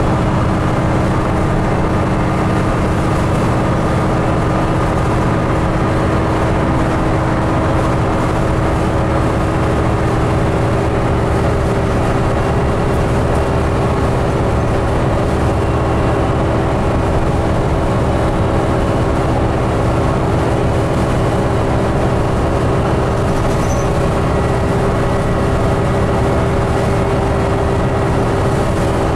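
Steady cabin noise of a 2008 New Flyer D40LFR diesel transit bus under way, heard from the passenger seats: engine drone and road rumble with a constant hum.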